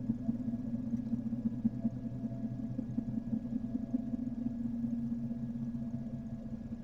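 An engine running steadily at idle below the camera, a low fluttering hum that eases off slightly toward the end.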